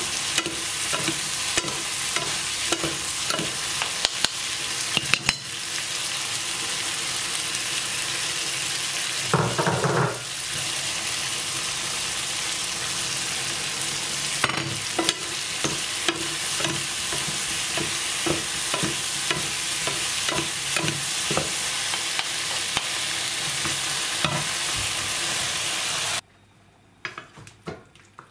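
Mushrooms, pointed peppers and onions sizzling as they fry in oil in a nonstick pan, with frequent clicks and scrapes of a spoon stirring them. About a third of the way in there is a louder burst lasting about a second. Near the end the sizzling cuts off suddenly, leaving a few faint clicks.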